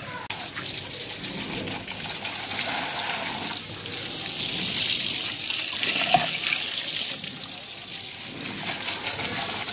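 Water from a hose splashing onto a car tyre and wheel arch, rinsing off soap suds; the spray grows louder through the middle, with one sharp knock about six seconds in.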